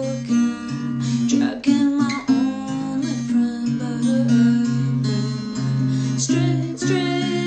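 Acoustic guitar strummed, playing a steady chord pattern with repeated low bass notes.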